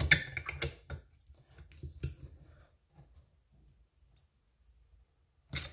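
Clicks and small metallic ticks from a screwdriver cranking a muffler bolt tight into a Helicoil thread insert in a small engine's bolt hole. They come thick in the first second, then sparse and faint, with one sharp click near the end.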